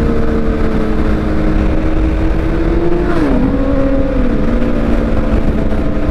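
Motorcycle engines running at road speed, their pitch dropping in two steps around the middle, over a steady rumble of wind on the microphone.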